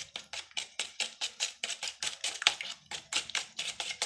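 A utensil clicking rapidly against a bowl as raw egg and noodle seasoning are stirred together, about five or six taps a second in an uneven rhythm.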